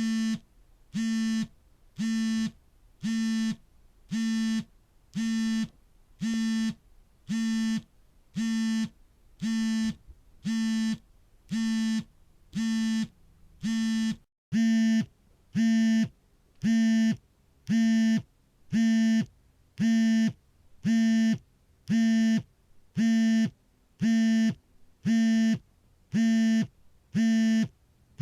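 Smartphone vibrating for an incoming call: its vibration motor buzzes in half-second pulses about once a second, each a steady low buzz. About halfway there is a brief break, after which the buzzes are slightly louder.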